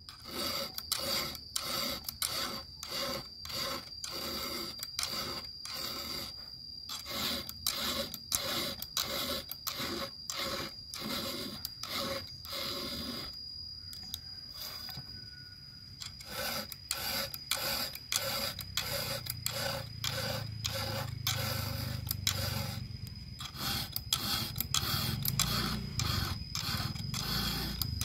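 Round chainsaw file rasping across the cutters of a saw chain on its bar in quick repeated strokes, about two a second, with a short pause about halfway through: hand-sharpening the chain.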